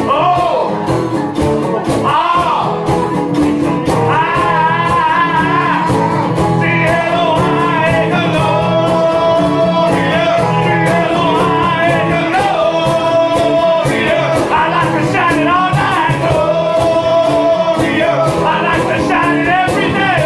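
Live music: a man singing over a strummed acoustic guitar, with a second guitar playing along.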